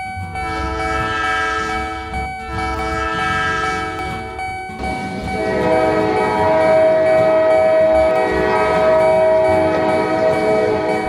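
Train horn sounding: two long blasts, then a longer, louder blast from about five seconds in, with a low rumble underneath.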